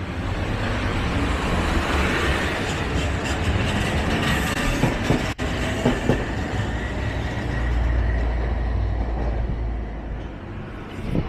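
Hankai Tramway Mo501-type streetcar No. 505, built by Teikoku Sharyo in 1957, running past close by on street track: a steady rumble of wheels and motor on the rails, with a few sharp clicks about halfway through. It eases off near the end as the car moves away.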